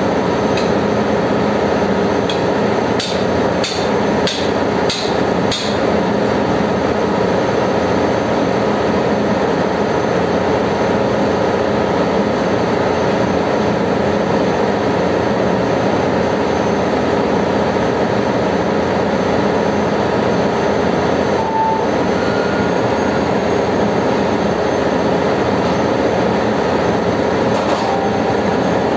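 Steady, loud drone of ship's engine-room machinery, with a quick run of about six sharp metal knocks a few seconds in and one more near the end, from tools striking the parts of an Alfa Laval purifier being taken apart.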